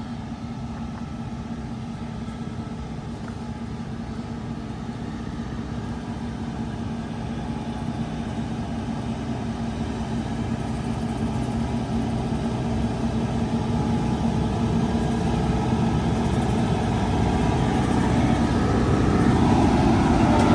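Massey Ferguson combine harvester's engine running as the machine drives toward the listener, growing steadily louder as it approaches.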